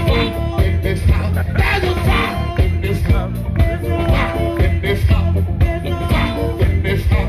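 Live band playing with a steady beat: drum kit, bass, electric guitar and keyboard, with singing over it.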